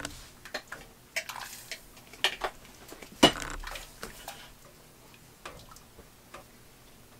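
Spatula scraping and tapping against a metal saucepan while stirring chocolate chips into hot cream: irregular scrapes and light knocks, with one louder knock about three seconds in.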